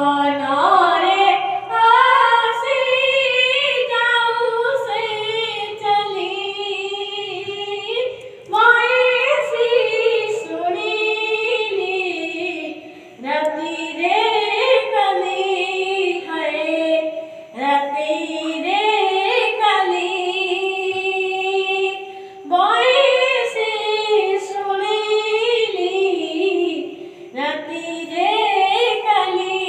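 A boy singing an Odia devotional song (bhajan) solo and unaccompanied into a handheld microphone. He sings in ornamented phrases of about four to five seconds each, with a quick breath between them.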